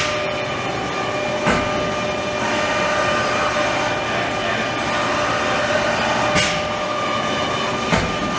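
Haas ST-20 CNC lathe running under power: a steady machine hum with several even whining tones, broken by a few brief sharp knocks.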